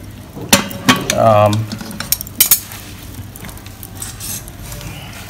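A few sharp clinks and knocks of a lidded cooking pot and metalware being set down and handled beside a stainless-steel charcoal fire ring, with a brief voice among them in the first two seconds.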